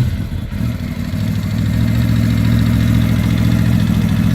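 Yamaha Aerox 155 scooter's single-cylinder four-stroke engine just after starting: a brief rise right at the start, then idling steadily.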